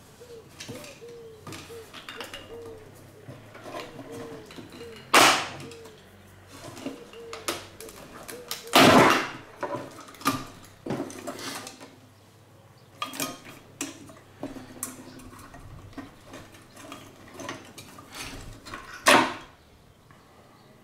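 Hands working parts loose from an old electronics chassis: scattered clicks, rattles and metallic knocks as wired components are pulled and prised free, with three louder knocks about five, nine and nineteen seconds in.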